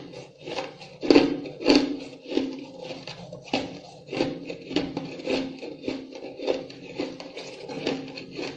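Ice being chewed close to the microphone: a steady run of crunches, roughly two a second.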